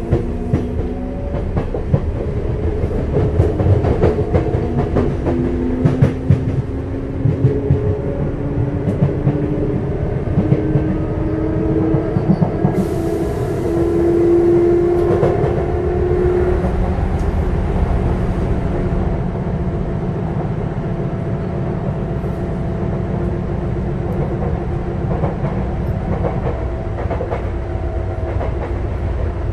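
Sotetsu 9000 series electric train heard from inside the car. Its Hitachi IGBT-VVVF inverter whines in several tones that climb in pitch for the first fifteen seconds or so as the train accelerates, then hold steadier as it runs on. Wheels click and knock over the rails throughout, and a brief hiss comes in about halfway.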